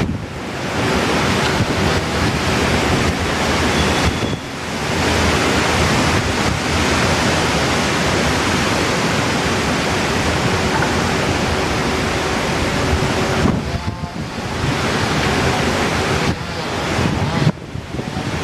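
Strong typhoon wind gusting and buffeting the microphone, a loud rushing noise that drops briefly about four seconds in and again near the end.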